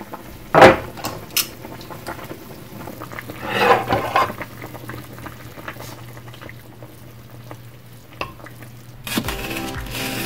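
A metal spoon stirring and clinking in a dark pot of bubbling soup, with a few sharp clinks early on and a louder scraping stir about three and a half seconds in. Music comes in near the end.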